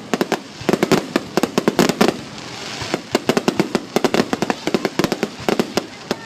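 Fireworks going off: a rapid, irregular string of bangs and crackling reports, with a short thinner lull about two and a half seconds in.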